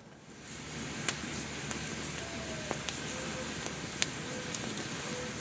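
Wood campfire crackling, a steady hiss with a few sharp pops of burning wood.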